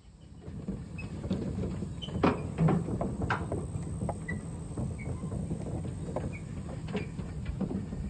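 Low, steady vehicle rumble with scattered knocks and rattles.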